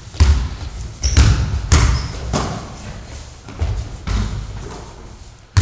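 Basketball bouncing on the hard floor of a sports hall: about seven irregular thuds, each echoing in the large hall.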